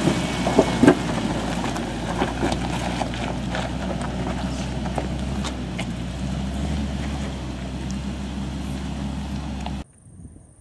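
Four-wheel drive's engine running steadily as it climbs past and away along a rocky dirt track, with stones and gravel clicking and crunching under the tyres, slowly fading as it moves off. Near the end it cuts off suddenly to faint wind.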